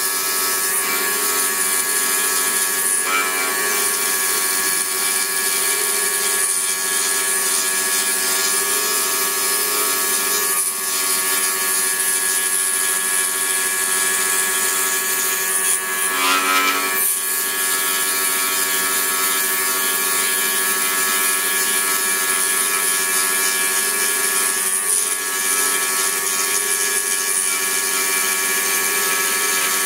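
Pégas 21-inch scroll saw running at a steady speed, its reciprocating blade cutting through wood as an inlay circle is followed around; an even, unbroken machine hum with a hiss over it.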